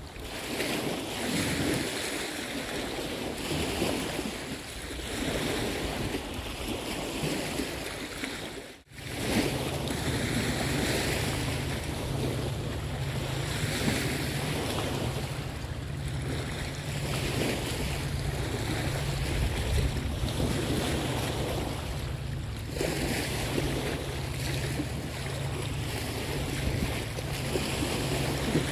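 Wind gusting across the microphone over lapping river water. After a brief dropout about nine seconds in, a steady low rumble runs underneath.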